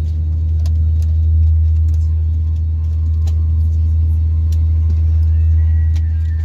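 Airliner cabin noise while taxiing: a steady low drone from the jet engines and cabin air, with a few faint clicks.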